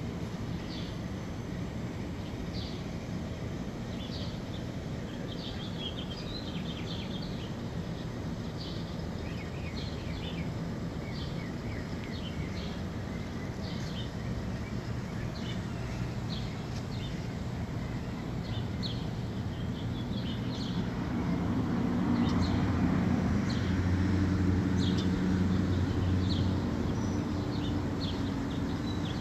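Outdoor ambience: birds chirping in short, repeated calls over a steady low rumble. About two-thirds of the way in, a louder low, humming rumble rises, then eases off near the end.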